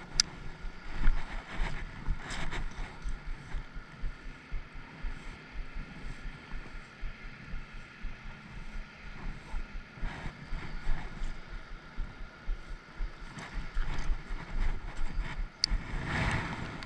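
Wind buffeting the microphone outdoors, an uneven low rumble that rises and falls, with a few sharp clicks.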